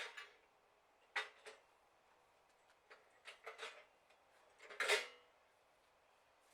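Faint clanks and rattles of a steel sawmill track section being handled and set down: a few short clatters, the loudest about five seconds in.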